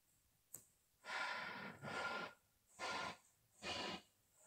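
A person's faint breathing: a small click, then a run of short breathy puffs about a second apart.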